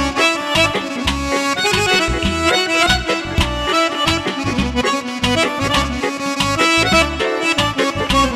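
Lively live Azerbaijani folk dance music led by an accordion playing a quick melody, over a steady, fast beat from a drum kit and a hand-played frame drum.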